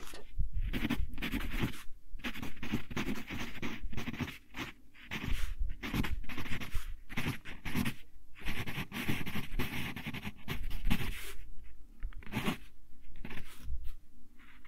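Wooden pencil scratching across lined paper in irregular strokes and pauses as a letter is handwritten.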